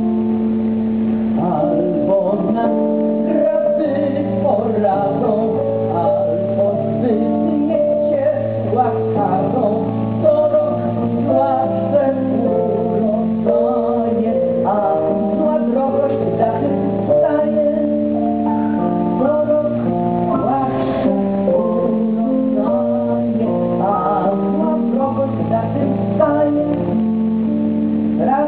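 Live song performance: a woman singing over sustained keyboard chords that change every few seconds.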